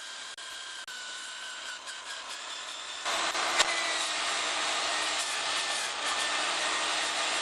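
Electric drill spinning a Roloc abrasive disc to strip rust and paint: a steady motor whine, turning louder and harsher about three seconds in as the disc works the metal, with one sharp tick soon after.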